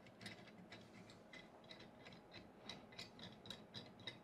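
Faint, irregular light clicks and ticks, a few a second, from a 500 mm Z-axis lead screw being turned by hand down through its nut on a 3D printer.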